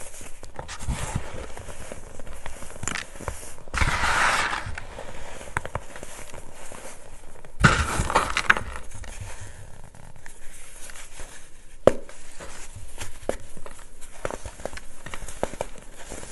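Hands crushing clumps of dry baking soda and letting the powder sift through the fingers into a plastic tub: a steady run of soft crunching and crackling. There are two louder crunching stretches, about four and eight seconds in, and one sharp click near twelve seconds.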